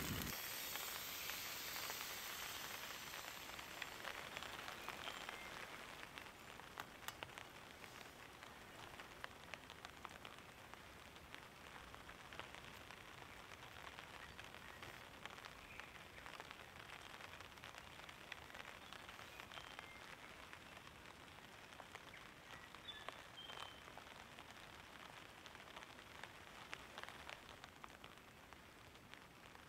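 Crepe batter sizzling faintly in a small pan on a gas-canister camp stove: a steady hiss dotted with many small crackles, louder for the first few seconds and then settling.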